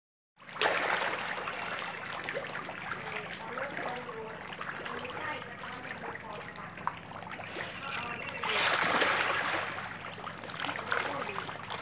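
Water churning and splashing as a crowd of feeding catfish thrash at the pond's surface, with a louder stretch of splashing about eight and a half seconds in.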